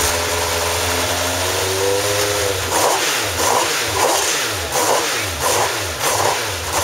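Ariel Atom 500's V8 engine idling, then from about three seconds in revved in a quick string of about seven throttle blips, each rising sharply and dropping back.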